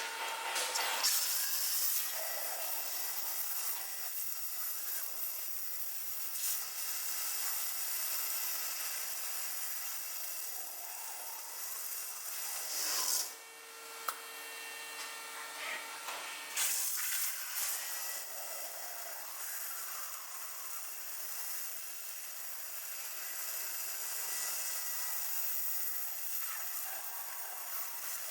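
CNC stone-working machine machining a stone slab: a steady high hiss with a grinding, rasping edge. It drops off briefly about halfway through, then resumes.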